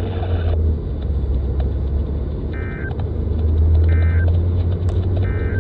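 Three short EAS end-of-message data bursts, identical screechy digital chirps each about a third of a second long and about 1.3 seconds apart, closing the Required Weekly Test. They play over a steady low rumble.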